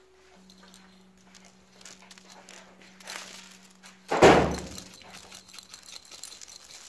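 Sequin confetti shaken out of a tube onto paper on a wooden workbench, then one sudden loud thump about four seconds in that dies away over most of a second. A steady low hum runs underneath.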